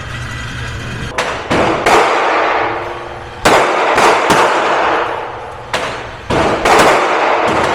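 Gunshots at an indoor shooting range: about eight or nine sharp cracks at irregular spacing, each followed by a ringing echo off the range walls.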